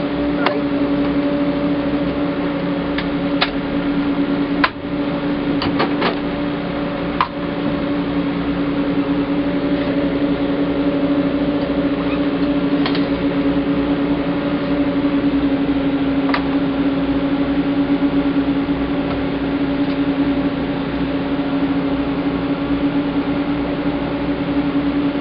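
Steady mechanical hum of the paddle boat's drive machinery, heard from inside the cabin beside the turning paddlewheel, over the wash of the paddles in the water. A few light knocks come in the first several seconds.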